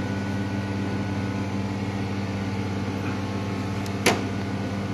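A steady mechanical hum with a low, even pitch, and a single sharp click about four seconds in.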